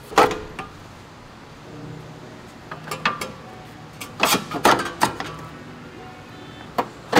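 Sharp metallic clanks and clicks of hand tools and steel suspension parts being handled: a loud one just after the start, a few about three seconds in, and a quick cluster between four and five seconds.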